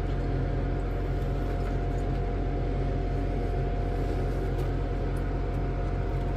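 Steady machine hum, deep and even, with a constant mid-pitched whine over a hiss of running air.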